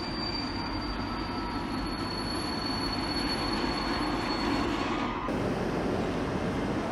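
Train rolling through the station with a steady high wheel squeal over the rumble of its wheels. About five seconds in the squeal cuts off, leaving a steady low rumble.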